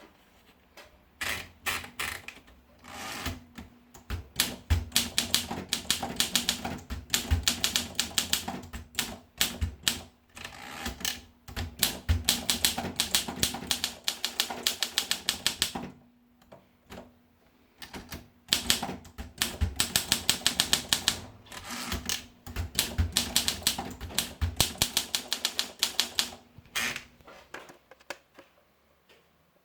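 Olympia SM3 manual portable typewriter being typed on: quick runs of key strikes, several a second, broken by short pauses, with the typing stopping near the end.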